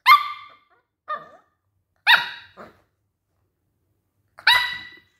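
Maltese puppy barking: four short, high-pitched barks, the second one weaker and the last after a pause of about two seconds.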